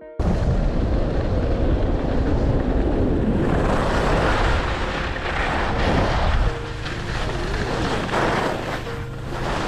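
Wind rushing over a body-worn camera's microphone while skiing fast downhill, with the hiss of skis scraping across packed snow swelling every second or two through the turns. The noise starts abruptly and its low rumble eases a little about two-thirds of the way through.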